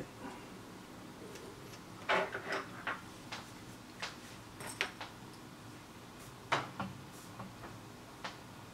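Irregular light clicks and knocks of small tools and parts being handled on a workbench, with the two sharpest knocks about two seconds in and about six and a half seconds in.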